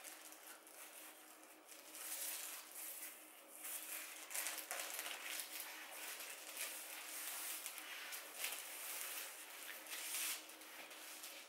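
Plastic cling film crinkling and rustling in irregular soft bursts as hands fold a roll of pastry dough over with it and peel the film back.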